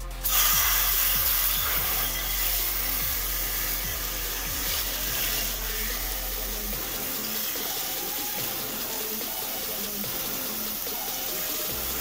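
Water spraying from a garden hose spray nozzle into an enamel pot and over the stainless-steel kettle standing in it, as the pot fills; a steady rushing hiss that starts right at the outset.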